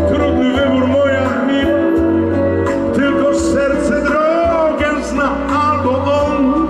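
A live band playing through a stage PA: a steady bass line and held keyboard and guitar chords under a gliding lead melody.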